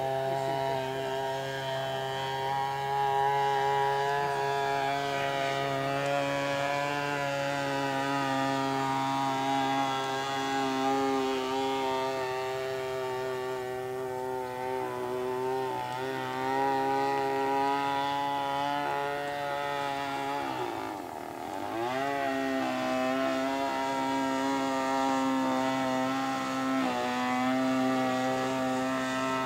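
The 52cc two-stroke chainsaw engine (GL5200M) of a large radio-controlled model plane runs steadily in flight, a continuous buzz. About two-thirds through, its pitch dips and climbs back. The builder considers its carburettor setting and propeller choice wrong.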